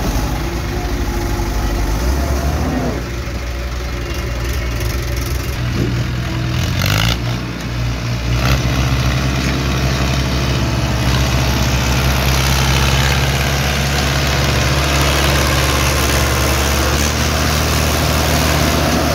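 Heavy diesel engines of an earth-moving loader and trucks running steadily, with the engine pitch rising about a third of the way in as one is revved.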